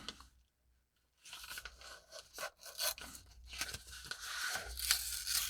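Padded mailing envelope being handled and pulled open: after a moment of silence, scattered faint rustles, scrapes and small clicks, becoming steadier rustling near the end.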